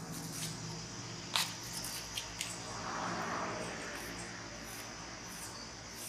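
A small knife cutting an apple on a wooden board, giving a few sharp taps, the loudest about a second and a half in, over a faint steady background hiss.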